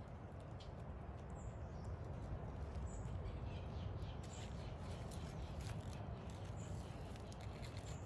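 Outdoor ambience: a steady low rumble with faint high chirps about every second and a half, and soft scattered clicks.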